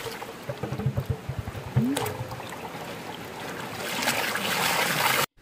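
Water gurgling and sloshing in a large soot-blackened metal cooking pot as it is dipped in a shallow river, then a stream of water pouring out of the tipped pot and splashing into the river, growing louder until it cuts off suddenly near the end.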